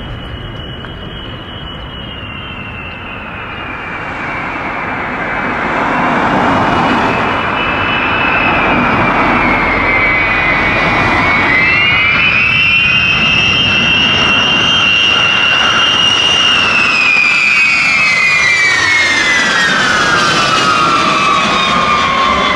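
Eight TF33 turbofan engines of a B-52H Stratofortress on landing approach: jet noise with a high whine, growing louder as the bomber comes in low. The whine falls steadily in pitch over the last few seconds as the aircraft comes by.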